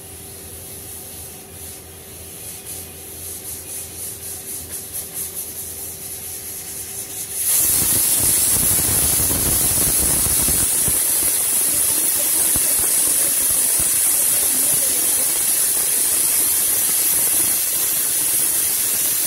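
Aluminium pressure cooker on a gas stove letting off steam through its weighted valve. A faint hiss puffs in quick, growing pulses, then about seven seconds in it breaks into a loud, steady rushing hiss: the cooker's whistle, the sign that it has come up to pressure and the cooking is done.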